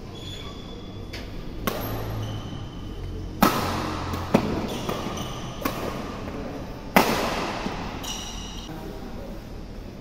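Badminton rally: rackets strike the shuttlecock with five sharp cracks, the loudest about three and a half and seven seconds in, while court shoes give short high squeaks on the court mat between hits.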